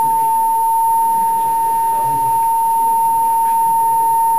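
Steady, high pure tone from a loudspeaker driven by a function generator, tuned to a glass beaker's natural frequency so the beaker resonates along with it.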